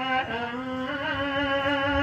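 A male folk singer holding long sung notes into a microphone, in the chanted style of Oggu Katha sung storytelling.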